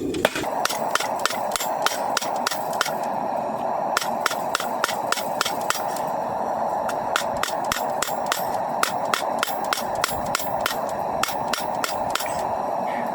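Hand hammer striking hot coil-spring steel on an anvil in a steady rhythm of about three to four blows a second, many strikes with a short bright ring, as a knife blank is forged flat. A steady hiss runs underneath.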